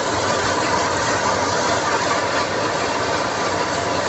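Tempoyak and fried chilli paste sizzling in a wok as a spatula stirs it: a steady frying sizzle.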